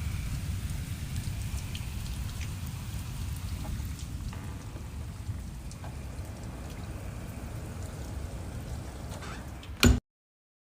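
A rain recording: steady rainfall with scattered drop ticks over a low rumble, easing slightly in level. It cuts off with a click just before the end, leaving silence.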